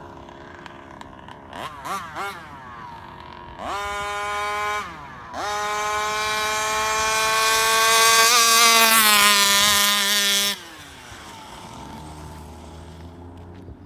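Rovan 34cc two-stroke engine in a Baja RC car. It gives a few short throttle blips, then a brief burst about four seconds in. From about five seconds it runs a long wide-open-throttle pass, its pitch climbing and then holding high, before it cuts off suddenly near the eleventh second and drops back to a faint idle.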